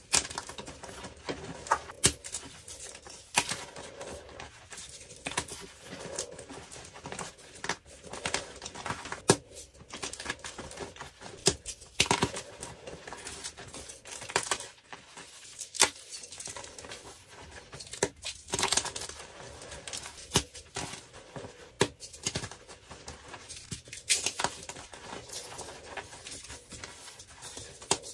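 Dyed gym chalk blocks crushed and broken apart in the hands: irregular dry crunches and sharp snaps, with the crumbled chalk crackling between them.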